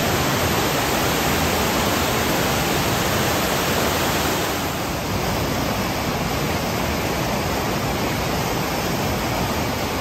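River water rushing over a weir and pouring through a dam sluice in a steady, loud rush, its tone changing slightly about halfway through.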